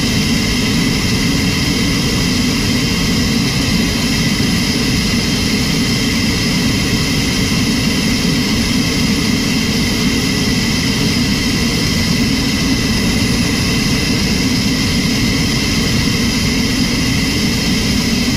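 AH-64A+ Apache attack helicopter's twin T700 turboshaft engines and main rotor running steadily on the ground: a steady high turbine whine over a heavy low rumble.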